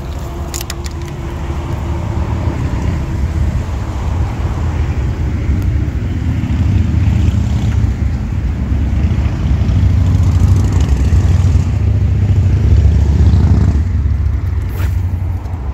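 Wind buffeting the microphone: a loud, gusty low rumble that swells through the middle and eases off near the end.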